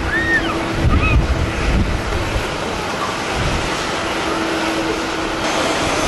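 Strong wind buffeting the microphone in uneven gusts, over the broad roar of a jet airliner climbing away. A few short, high, arching chirps in the first second or so.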